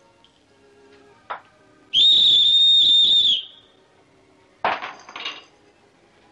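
A whistle blown once: a single steady high note lasting about a second and a half, with a slight waver. A short light clatter follows about a second after it stops.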